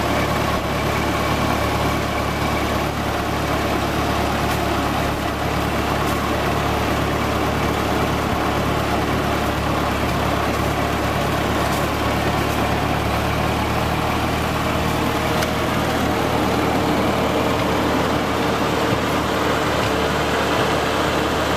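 1945 Ford 2N tractor's four-cylinder flathead gasoline engine running steadily while the tractor is driven.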